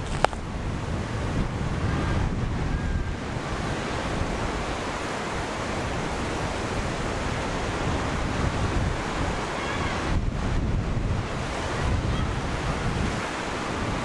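Mediterranean surf breaking along a sandy shore, a continuous wash of waves with wind buffeting the microphone. A single sharp click sounds just after the start.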